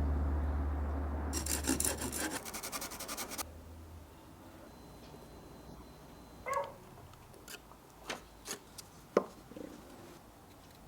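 A rapid scratchy scraping for about two seconds as a low music tone fades out, then a handful of separate light knocks and taps, the sharpest about nine seconds in.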